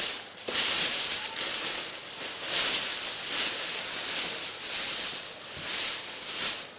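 A plastic bag crinkling and rustling in uneven swells as clothes are rummaged through and pulled out of it.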